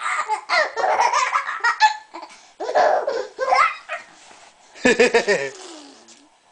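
A baby laughing in three bursts, the last followed by a soft, sliding coo.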